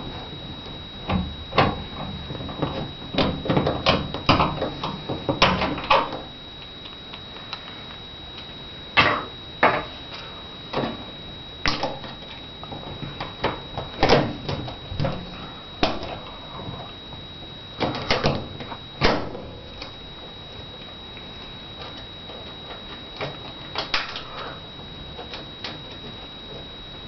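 Irregular clicks and knocks of things being handled and worked by hand, coming in clusters with pauses, over a steady faint high-pitched whine.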